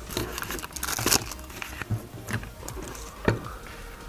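Packaging crinkling and rustling as a torn paper mailer envelope and a clear plastic bag are picked up and cleared away. Several light knocks come through, the sharpest a little after three seconds in.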